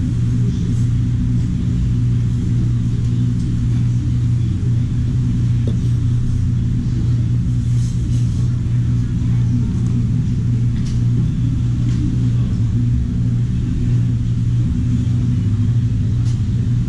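Steady, loud low machine hum, like an electric fan or compressor motor, running throughout. A few faint light clicks of a spoon in a ceramic soup bowl.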